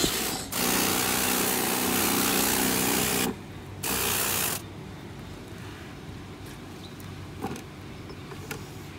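A jet of water spraying onto a 1/14-scale RC truck while it is washed: a hiss of about three seconds with a steady hum under it, a pause, then a second short burst of spray; after that only a few faint clicks.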